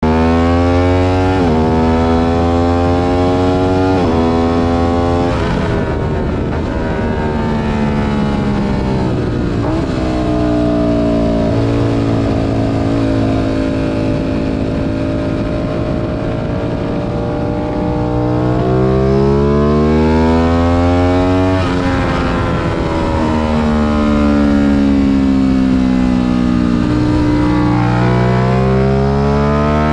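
Aprilia RS 660's parallel-twin engine under hard acceleration heard from onboard. Its pitch climbs and drops sharply with upshifts about one and a half and four seconds in, then falls away as the bike slows. It climbs again through another shift about two-thirds of the way through, with steady wind rush behind it.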